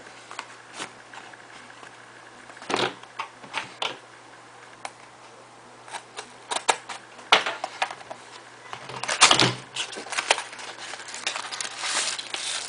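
A small cardboard product box being handled and opened: scattered clicks, taps and light knocks, growing busier about three-quarters of the way through, with the loudest scuff about nine seconds in.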